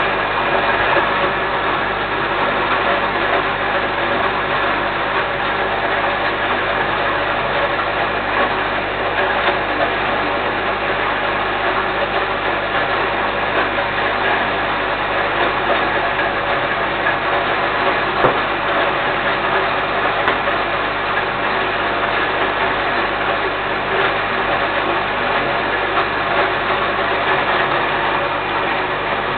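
Small electric grain mill running steadily while grinding grain for feed, its motor and grinding chamber giving an even, continuous hum and rattle. One sharp click about two-thirds of the way through.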